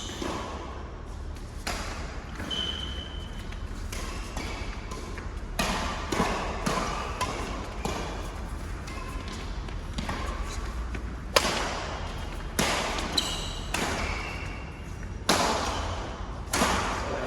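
Badminton rally in an echoing hall: rackets striking a shuttlecock in sharp hits at irregular intervals of about a second, with short shoe squeaks on the court floor.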